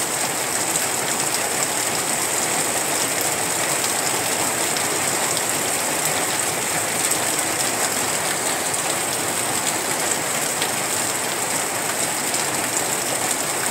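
Heavy rain falling steadily: an even, unbroken hiss with fine patters of individual drops.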